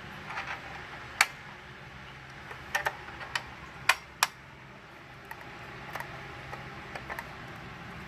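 Irregular sharp clicks and knocks of a Fire-Lite BG-10 fire alarm pull station being handled to reset it after it was pulled, the loudest coming between one and four and a half seconds in.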